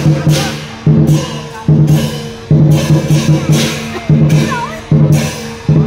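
Dragon-dance percussion of drum, cymbals and gong playing a fast, driving rhythm. Rolls of drumbeats are broken about once a second by a fresh crash of cymbals.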